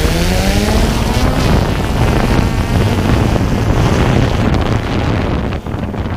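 Quadcopter drone's electric motors and propellers spinning up for lift-off: a whine that rises in pitch over the first second, then a steady loud buzz with wind buffeting the microphone.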